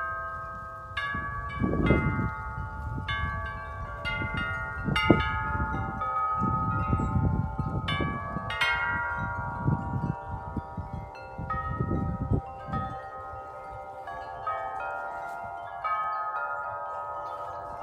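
Several large tubular wind chimes ringing in gusty wind: many overlapping tones struck irregularly, with wind rumbling on the microphone in gusts.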